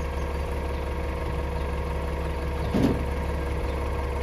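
Mack LEU CNG garbage truck's natural-gas engine idling steadily, with a single brief thump about three seconds in.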